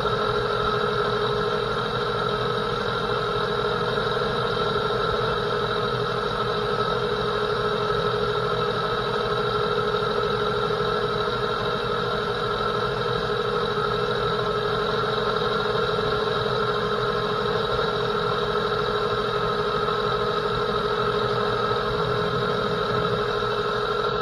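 Metal lathe running steadily under a cut with a negative-rake WNMG carbide insert, a constant machine whine of several steady tones over the spindle's running noise.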